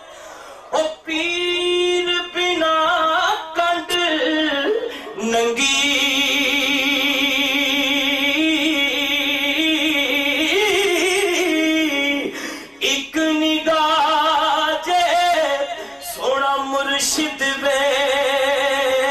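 A man singing Punjabi Sufi verse unaccompanied into a microphone, in drawn-out melismatic phrases. From about five to twelve seconds in he holds one long wavering note, and there are short breaks between phrases.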